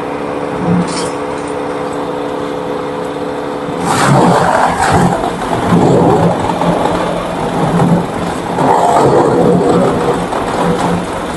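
A wood chipper-shredder's engine running steadily. From about four seconds in, loud irregular crunching and grinding as material is fed in and shredded.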